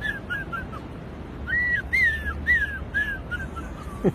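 A man whistling an imitation of a bird call: a run of short arched notes that fall in pitch and quicken, given twice.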